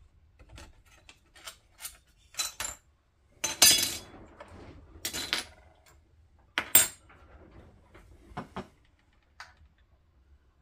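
Metal clinks and clanks of hand tools and small parts against a chainsaw as its heat shield is worked off: scattered sharp clicks, with the loudest clatter about three and a half seconds in and again near seven seconds.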